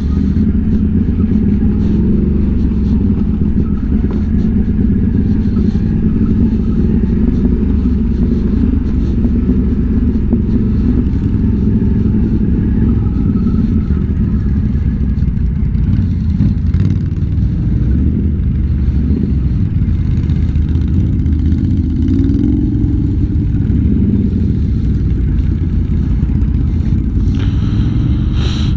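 ATV engine running steadily, a continuous low drone with no big revs.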